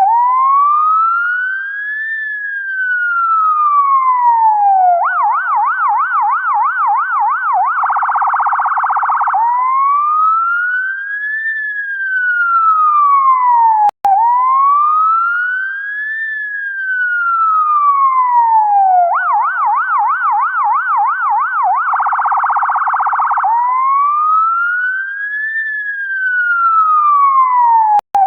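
UK ambulance electronic siren cycling through its tones: a slow rising and falling wail, then a faster yelp of about three or four swoops a second, then a very rapid warble, before the wail returns. The whole sequence plays twice, with a click and a momentary break halfway through.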